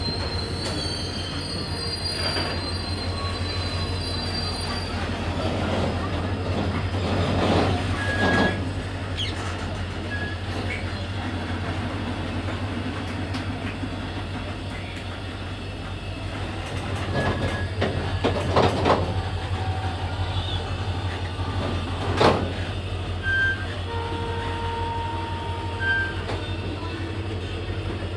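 Goods train of open freight wagons rolling slowly past, wheels and running gear rumbling over a steady low hum, with several loud metallic clanks from the wagons and brief high-pitched wheel squeals now and then.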